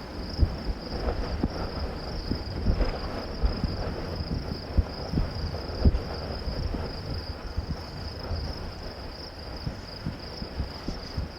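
Steady high-pitched insect trilling throughout, under low, irregular rumbling and thumps of wind buffeting the microphone outdoors.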